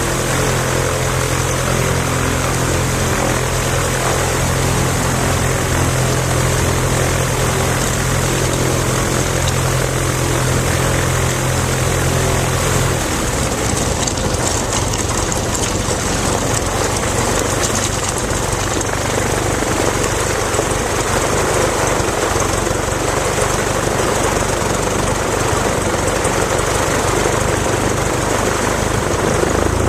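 Piper Super Cub's piston engine and propeller running on the ground with a steady engine note. About thirteen seconds in, the note changes to a rougher, noisier sound, as the plane gets ready to take off from the gravel.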